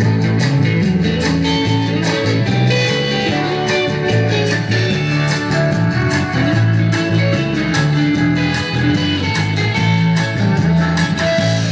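Background music led by guitar, with a steady bass line.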